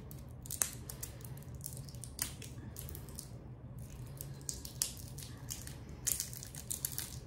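Small batteries being handled in the fingers: a run of short, sharp clicks and light scrapes as they knock and rub against each other, with a cluster of clicks near the end.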